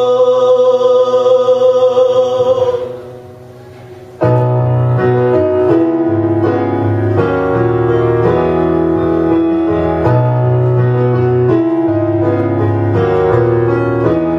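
A singer's long held note fades out in the first three seconds, and after a short pause a piano interlude starts and plays on.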